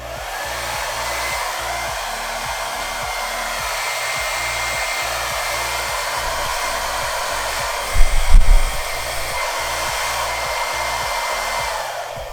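Feekaa ionic hair dryer running with its magnetic concentrator nozzle fitted: a steady rush of air with a faint high whine, switching on at the start and winding down near the end. A brief, very loud low rumble cuts in about eight seconds in.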